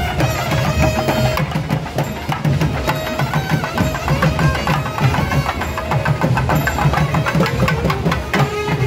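Tamate frame drums beaten fast with sticks in a dense, loud rhythm, with a held melody line playing over the drumming.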